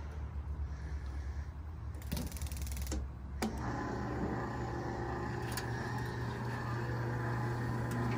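Arke vertical electric rotisserie grill: a few clicks as its control knobs are turned, then about three and a half seconds in it starts up with a click and runs with a steady hum.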